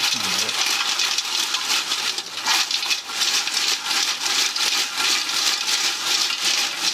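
Fried breadfruit chips being tossed in a steel vessel, a dense continuous rustling and clattering of crisp chips against each other and the metal as they are mixed with red chilli powder.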